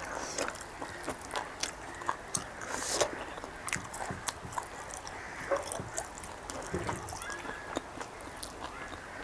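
Close-up chewing of tough boiled pork intestine: irregular sharp mouth clicks and smacks as it is worked between the teeth.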